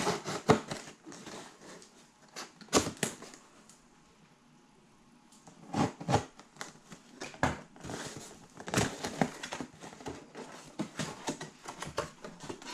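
Cardboard shipping box being cut open with a box cutter, then its flaps and a cardboard insert pulled and handled: scattered sharp scrapes, knocks and crackles of cardboard, with a lull of about two seconds a few seconds in.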